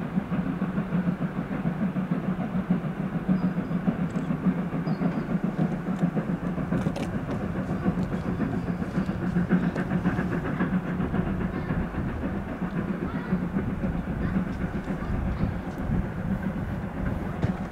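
A train passing on the tracks: a steady rumble of wheels on rails with a few faint clicks.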